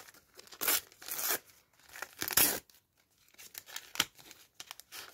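A Topps Champions League sticker packet being torn open by hand: a few short rips of the wrapper, the loudest about two seconds in, then lighter crinkling as the packet is pulled apart.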